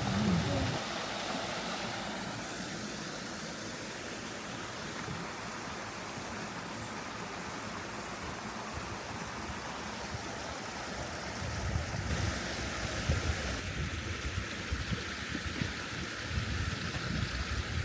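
Valley stream rushing steadily over rocks. From about two-thirds of the way in, irregular low rumbles and a few knocks join it.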